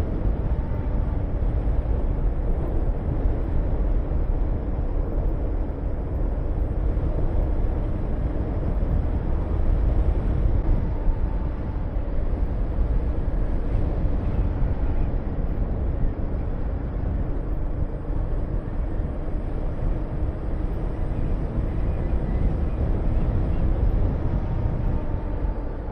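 Honda VTR250's V-twin engine running at a steady cruise, mixed with heavy wind rush on the microphone.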